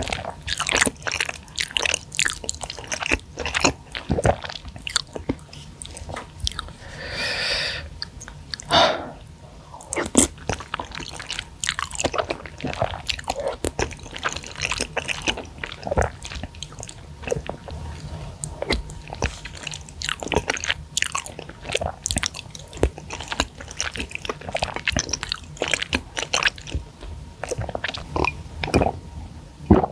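Close-miked mouth sounds of a person eating soft flat rice noodles in thick sauce: constant wet, smacking chews and clicks, with one long slurp about seven seconds in.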